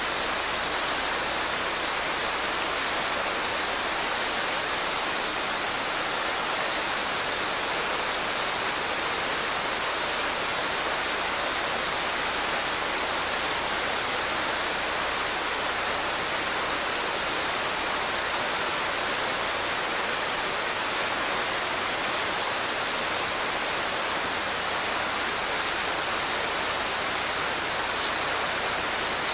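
Mountain stream water rushing and splashing steadily over rocks, a constant even rush. Faint high cicada song, the title's Robust cicada, rises and fades behind it a few times.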